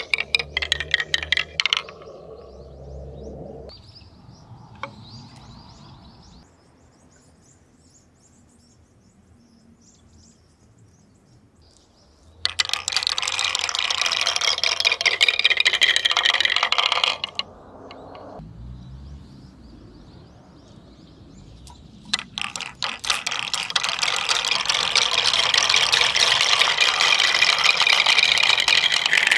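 Translucent marbles rolling down a wooden spiral petal-tower marble run, clicking and clattering as they drop from petal to petal and into the wooden base tray. The clatter comes in bursts: a brief run at the start, a dense stretch about twelve seconds in, and a long dense run from about twenty-two seconds on, as many marbles come down together.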